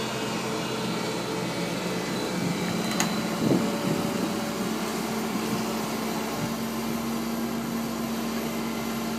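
Kobelco excavator's diesel engine running steadily with a constant hum, and a single sharp click about three seconds in.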